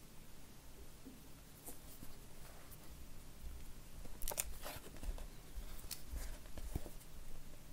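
Hands handling a sealed iPhone box and its packaging: quiet rustling with a few short crisp crackles and clicks, the loudest about four and a half seconds in.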